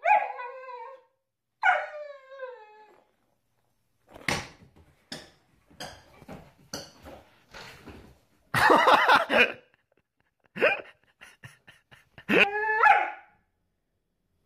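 German Shepherd puppy giving two high, falling whining yelps, then a run of sharp clicks and knocks as it scrambles after a ball on a laminate floor, with a louder bark-like burst in the middle and another yelp near the end.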